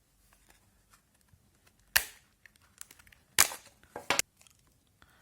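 Sharp clacks of a laptop charger's plastic case and lid being handled and pressed together: one loud knock about two seconds in, then three more close together near the end.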